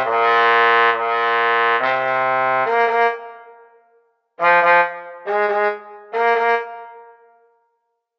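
Low brass quartet playing: held chords that fade out about three seconds in, then after a brief gap three short punched chords about a second apart, each left to ring away.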